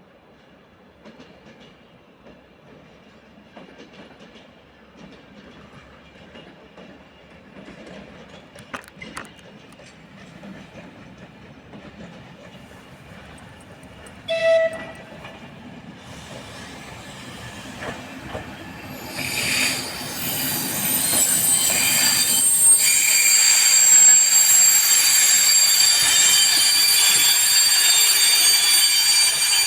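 A passing train: a short horn blast about halfway through, then the train comes up loud with its wheels squealing on the rails in several high, steady tones, over the rumble and clatter of the wheels.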